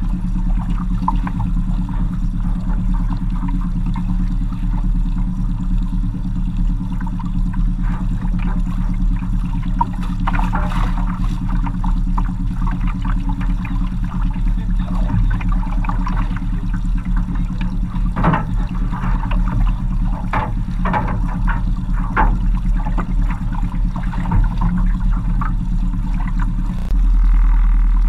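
Small outboard motor running steadily at low speed on an aluminum fishing boat, with irregular splashes and knocks of water against the hull. The engine note gets louder about a second before the end.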